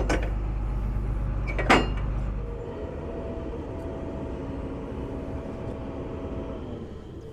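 Heavy diesel combine engine running with a strong low drone, broken by two sharp metallic clunks. The drone stops about two and a half seconds in, leaving a quieter machine sound with a faint steady whine.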